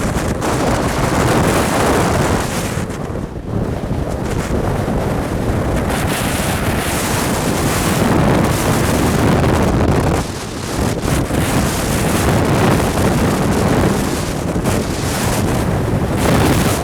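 Strong, gusting windstorm wind buffeting the microphone in a loud, continuous rush, easing briefly a couple of times before surging back.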